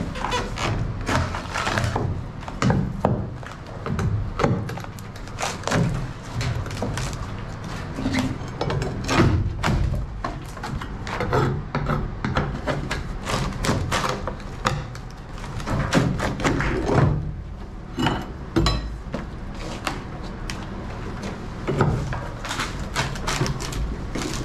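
A steel pry bar prying and scraping along a fiberglass seam, breaking fiberglass and rotted wood loose from a boat's stringer, with many irregular knocks, cracks and scrapes.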